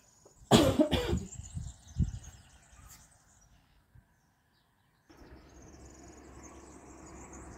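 A person coughing twice in quick succession, followed by a short thump. After a brief gap of dead silence, a faint steady background hiss with a thin high tone.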